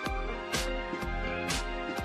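Background music with a steady beat over held notes and a low bass.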